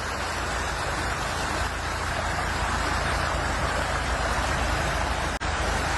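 Steady rushing of floodwater, with a low rumble underneath; the sound drops out for an instant about five and a half seconds in.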